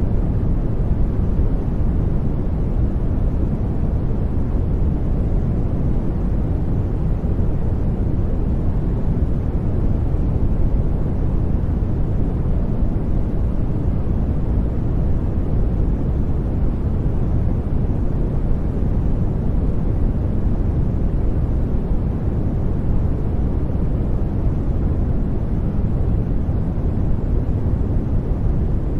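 Steady brown noise: an even, deep rumbling hiss with most of its energy at the bottom, falling away toward the top, unchanging throughout.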